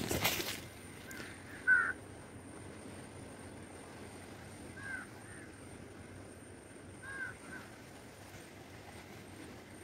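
Leaves and twigs brushing and crackling against the camera at the start, then a bird giving short calls in ones and twos a few seconds apart, about six in all. The second call is the loudest.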